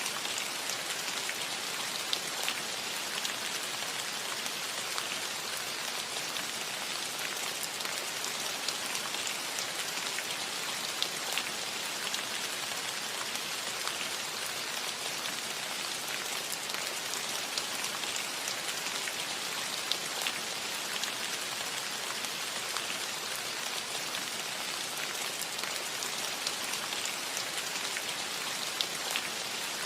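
Steady rain on a metal roof: an even hiss of rainfall with single drops ticking out sharply here and there.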